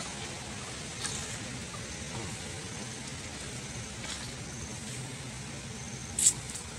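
Steady low outdoor rumble and hiss, with a few faint brief high squeaks and one short, sharp high squeak shortly before the end.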